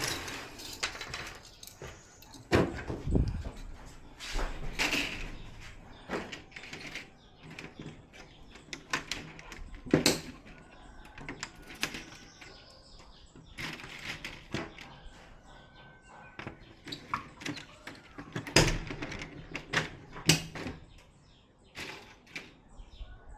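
Irregular clicks, taps and rustling from the parts of a flat-screen TV being handled during repair, with several sharper knocks spread through.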